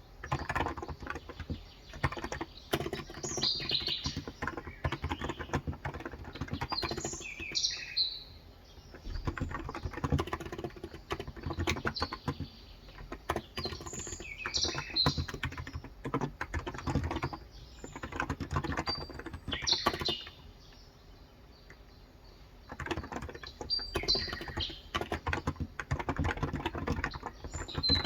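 Typing on a Cox Endeavor electrostatic capacitive (non-contact) tenkeyless keyboard with 35 g keys: a fast, uneven run of keystroke clicks that pauses for a couple of seconds past the middle. Birds chirp in the background.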